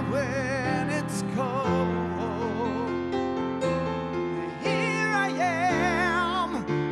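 Music: a slow song with piano chords under a long-held melody line with wide vibrato.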